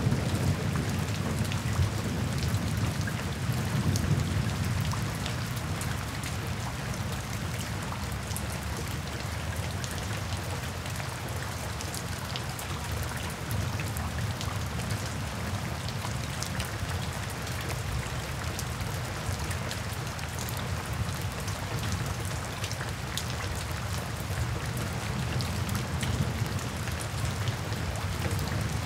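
Steady rain falling, with scattered drops ticking, and a low rumble of thunder over the first few seconds that fades away.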